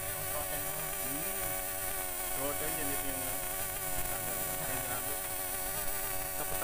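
Distributor test bench motor spinning a Toyota distributor at a steady speed: a continuous hum of many even tones. The distributor is being run up on the tester to check it at speed.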